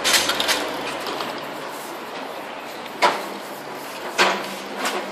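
Short hisses from aerosol spray-paint cans, four bursts: one at the start, then about three seconds in, a little after four seconds and just before the end, over steady background noise.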